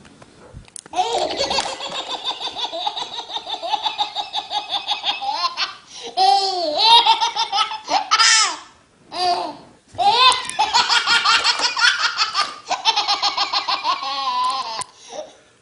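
A baby belly-laughing in long runs of rapid, high-pitched laughs, broken by a couple of short pauses about halfway through.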